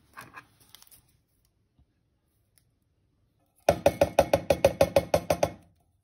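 Rapid run of knocks, about eight a second for about two seconds, as sweetcorn is tapped out of its container into a plastic bowl of macaroni salad.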